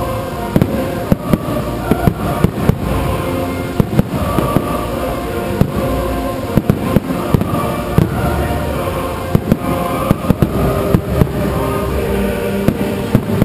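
Fireworks shells bursting in a rapid, irregular string of sharp bangs over sustained music.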